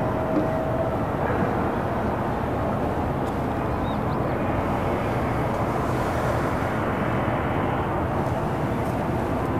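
Calm harbour ambience: a steady low rumble of distant road traffic and city noise, with a faint high chirp about four seconds in.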